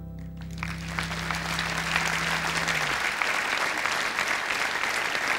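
Theatre audience applauding after a song, the clapping swelling in about half a second in. The band's last chord rings under it at first and dies away about three seconds in.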